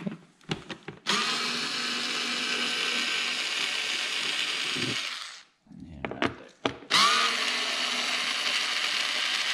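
Cordless drill-driver with a socket backing bolts out of a car's inner fender liner: two runs of about four seconds each, each with a quick rising spin-up, and a few clicks and knocks of handling before and between them.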